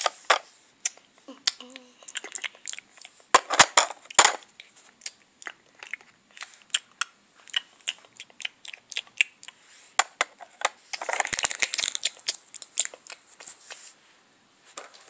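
Irregular crackling, clicking and crinkling from dolls and plastic-wrapped toy food being handled close to the microphone, with louder rustling patches about a second, about four seconds and about eleven seconds in.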